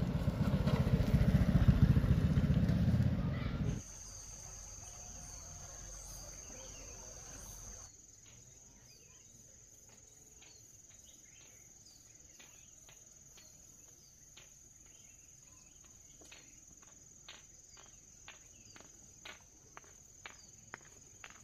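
A loud low rumble for the first few seconds that cuts off suddenly. Then a steady high insect trill, with footstep-like ticks growing more frequent toward the end.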